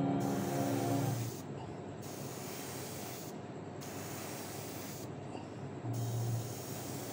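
Airbrush spraying paint in short bursts, its air hiss dropping out briefly every second or two. Background music ends about a second in.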